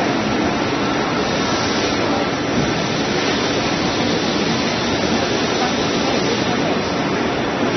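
Steady, dense noise of a busy machinery exhibition hall, with machines running and faint voices blended in.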